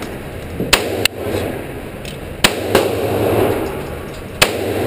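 Handgun shots on a shooting range: three sharp reports about two seconds apart, with two fainter shots in between.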